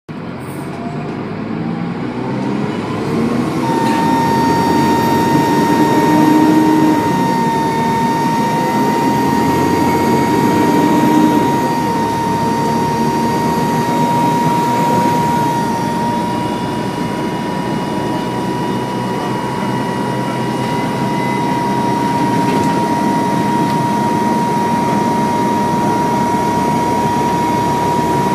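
Dennis Trident II double-decker bus's diesel engine running loud under way, getting louder over the first few seconds, with a steady high turbo whine that sets in about four seconds in and holds.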